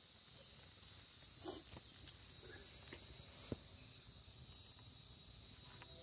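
Steady high-pitched drone of an insect chorus, with a few sharp pops and crackles from a wood campfire, the sharpest about three and a half seconds in.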